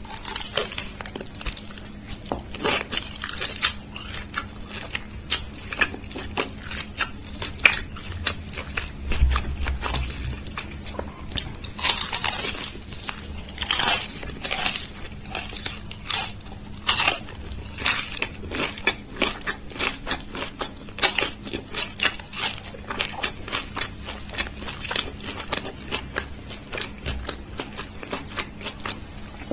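A person chewing and biting crunchy food close to the microphone: irregular crisp crunches and clicks with occasional longer crackly bites. A faint steady hum underneath.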